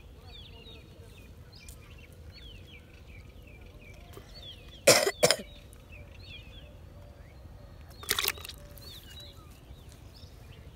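Small birds chirping softly and steadily, broken by two short, loud noises: a quick double one about five seconds in and a single one about eight seconds in.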